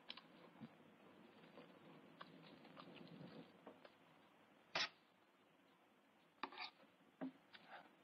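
Faint eating sounds: a spoon scraping and clinking against a pan of beans, with a sharp clink about five seconds in and a few more near the end.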